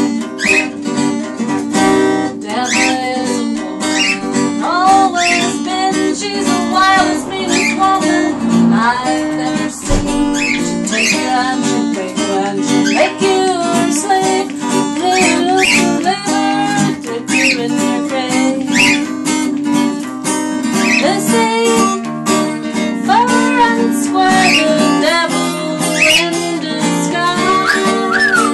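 Acoustic guitar strummed and picked, with a voice singing along. Short rising whistled chirps are scattered throughout.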